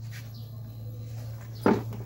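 A steady low electrical hum, with one short animal call about one and a half seconds in.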